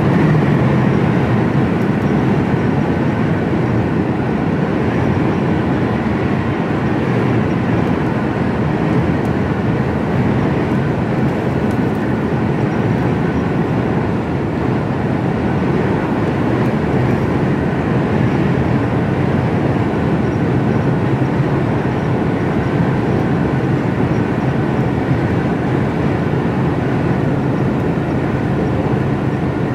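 HGV container lorry on the move, heard from inside the cab: a steady engine drone with road and tyre noise.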